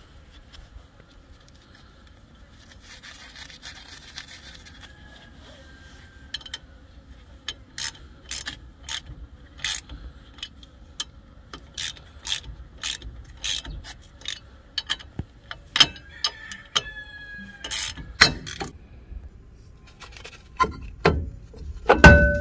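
Metal clicking on a 1994 Nissan D21's rusted rear brake drum as it is worked loose, about two clicks a second. Then come louder, irregular clanks with a ringing note from the drum, the loudest near the end as the drum comes off the hub.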